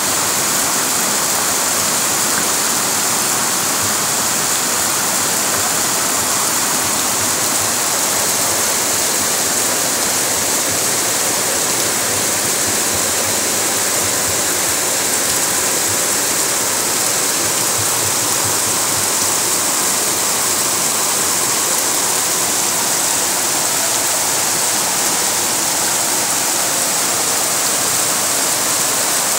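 Floodwater rushing down a street in heavy rain: a steady, loud rushing and splashing that does not let up.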